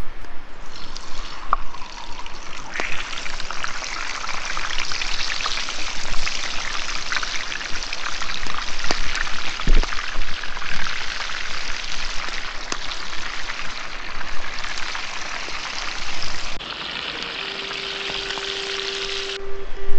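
Hot frying oil sizzling and crackling with many fine spatters as food goes in, a sign the oil is hot enough to fry. The sizzle starts about a second in, grows loud within a couple of seconds and cuts off suddenly near the end.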